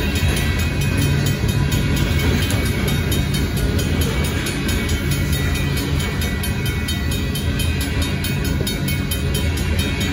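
Freight cars (covered hoppers and a tank car) rolling past: a steady rumble of steel wheels on the rails.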